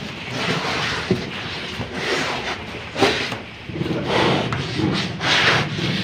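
Scuffling and rubbing with a couple of sharp knocks as a cow tosses its head against a wooden stall rail while a nose rope is fitted.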